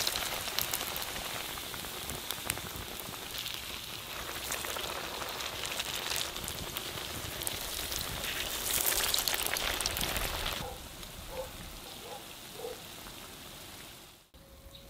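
Potato cutlets shallow-frying in hot oil in a pan over a fire: a dense sizzle full of small crackles and pops, loudest about nine seconds in. About ten and a half seconds in it drops to a much quieter sizzle.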